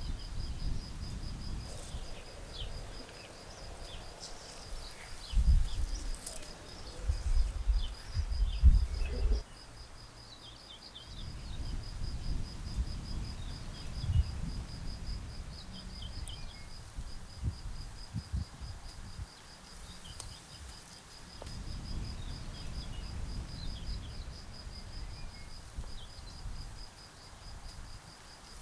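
An insect trilling steadily in a rapid, high pulsing note, with birds chirping now and then. Irregular low rumbles come and go, loudest about five to nine seconds in.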